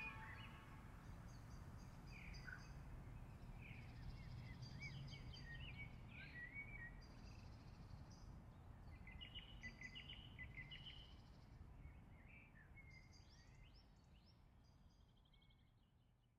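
Faint birdsong, many short chirps and trills from several birds, over a low outdoor rumble, fading out near the end.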